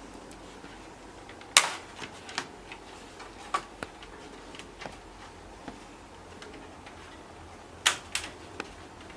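Sharp plastic clicks and snaps from a laptop's casing being worked apart by hand. Two loud snaps come about 1.5 s in and another pair near the end, with lighter ticks and taps between.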